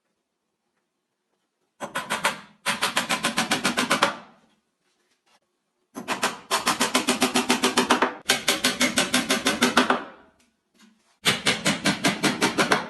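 Rapid rattling strikes, about ten a second, coming in several bursts of one to two seconds with stops between them.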